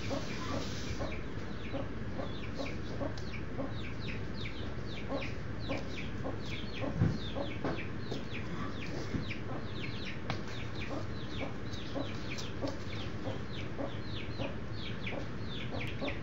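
Baby chicks peeping constantly, many short high falling cheeps several a second. One brief low sound about seven seconds in is the loudest moment.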